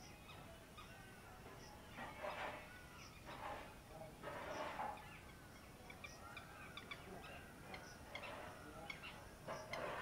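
Birds calling: several harsh, noisy calls about half a second long from a larger bird, among thin arching chirps and short high peeps from smaller birds.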